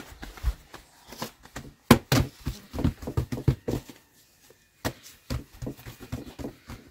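Hands patting, slapping and pressing soft bread dough on a floured cloth-covered table: an uneven run of soft slaps and taps, the loudest about two seconds in, with a brief lull a little after four seconds.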